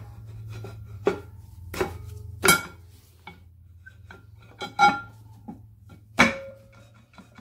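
Metal clanks and knocks, each with a short ring, as a Land Rover Defender's handbrake drum is worked on over new park brake shoes onto its flange: about six knocks, the loudest in the middle and about six seconds in. Under them runs a steady low hum that drops away about six seconds in.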